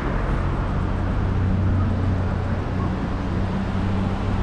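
A vehicle driving along a road: a steady low engine drone under a continuous rush of road and wind noise.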